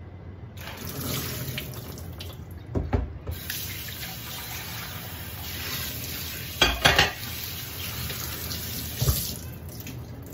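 Kitchen tap running into a stainless steel sink as sprouting mung beans are rinsed in a plastic colander. The water starts about half a second in and stops near the end, with a few sharp knocks along the way, loudest a little past halfway.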